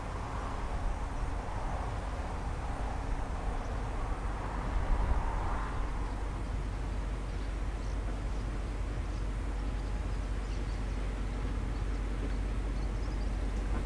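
Diesel freight locomotive pulling loaded wagons slowly, its engine a steady low rumble.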